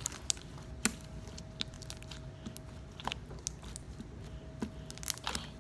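Slime being stretched and squished by hand, giving irregular sharp clicks and pops, over a faint steady hum.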